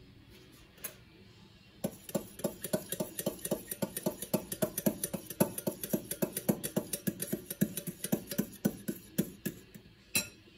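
Metal spoon beating yogurt in a glass bowl: quick clinks of the spoon against the glass, about five a second, starting about two seconds in and stopping near the end.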